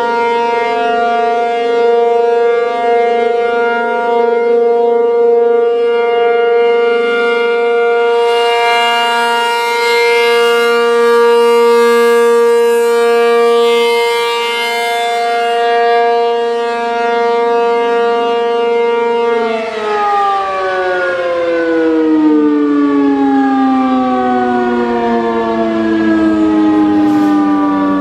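ACA P-50 electromechanical civil defense siren sounding a loud, steady single tone rich in overtones, its level swelling and fading slowly. About twenty seconds in, the pitch starts falling steadily as the siren's rotor slows.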